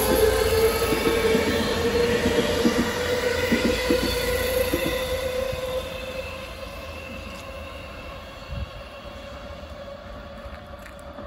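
A JR West commuter electric train running past close by: the rumble and clack of its wheels with a steady whining tone. It fades away after about five seconds as the train moves off.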